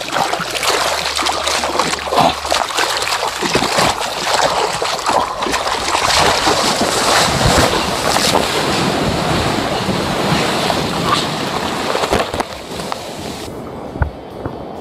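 Whitewater of a breaking wave rushing and splashing over a handheld phone in the surf, loud and churning right at the microphone. Near the end the sound turns duller as the high end drops away.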